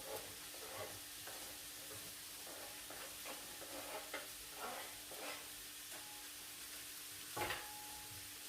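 Chicken breast sizzling as it grills over raised heat, faint and steady under a low hum, with light scrapes and clicks and one louder knock followed by a brief ring near the end.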